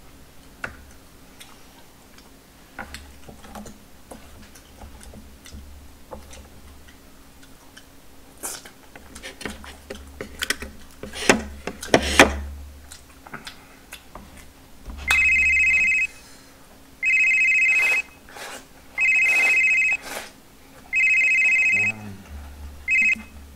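Telephone ringing with an electronic ring: four rings of about a second each, about two seconds apart, starting some fifteen seconds in, then a short cut-off ring near the end. Before it, soft clicks of chopsticks on dishes and eating sounds.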